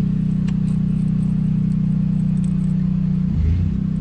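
An engine running steadily at constant speed, with a strong, even hum. A little before the end there is a brief, lower and louder surge before it settles back.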